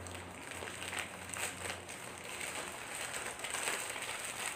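Gift wrapping crinkling and rustling as a present is pulled open and handled by hand, with uneven crackles.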